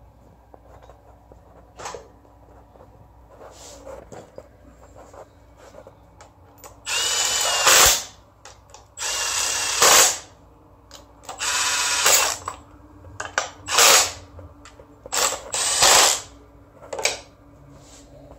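Red cordless power driver running the bolts of an aluminium engine-to-transmission adapter plate into a Honda V6 block. There are about six short runs of the motor, each about a second long and several rising to a louder peak at the end, after a few seconds of small clicks of bolts being threaded by hand.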